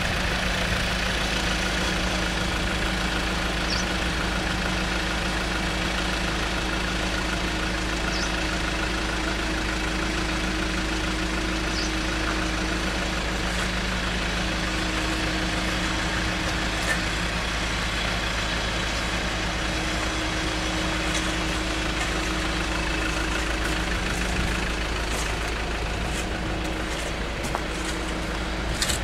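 Diesel engine of an Iveco Daily truck idling steadily, a constant low drone.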